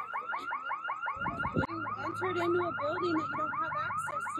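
Electronic alarm sounding a fast, repeating chirp pattern, about six rising chirps a second. A brief low rumble comes about a second in.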